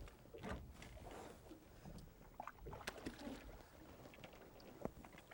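Faint handling noises in a fishing boat: scattered small knocks and clicks, one sharper knock near the end, over a low wash of water.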